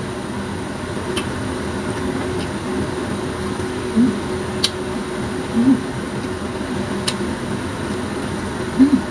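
Steady whirring hum of an electric fan. Over it come three short hummed 'mm' sounds and a few sharp mouth clicks from eating grapes.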